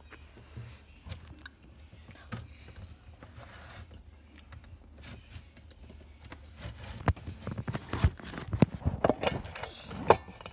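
Rummaging through a refrigerator: plastic containers and packets being moved, knocking and rustling, with a quick run of louder clicks and knocks in the last few seconds over a low steady hum.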